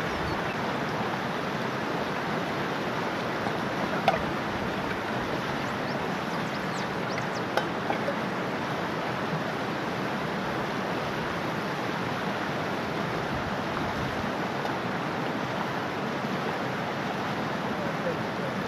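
Steady rush of a shallow river running over rocks and rapids, with a few sharp clicks: one about four seconds in and two close together near eight seconds.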